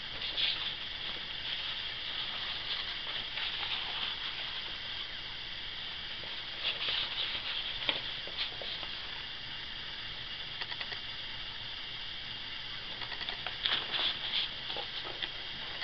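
A steady hiss of background recording noise, with a few faint rustles and clicks, about a second in, around seven to eight seconds in and near the end.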